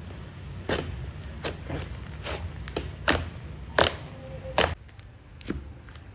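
Thick, dough-like slime being squeezed and stretched by hand, making a string of sharp irregular clicks and pops. The loudest pops come a little after three seconds, at about four seconds and at about four and a half seconds.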